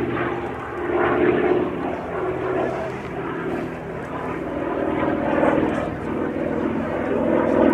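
Hawker Sea Fury T.20's radial piston engine and propeller in flight, a steady drone that swells and fades several times as the aircraft banks and turns.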